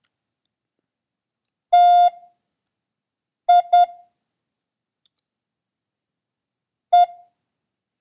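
Morse code beep tone sending the word TIE: one dah, then two dits, then a single dit, with the letters spaced widely apart.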